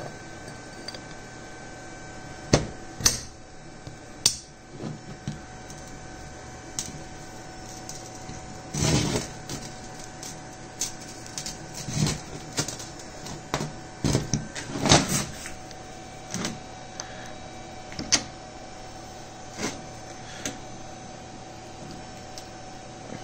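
Machined steel lathe-chuck parts being handled on a workbench: irregular metal clinks and knocks as they are turned and set down, with a short scrape about nine seconds in, over a steady background hum.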